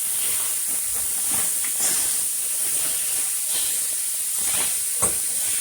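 Ground beef sizzling in hot oil in a pan: a steady hiss with small crackles, and one sharp click about five seconds in.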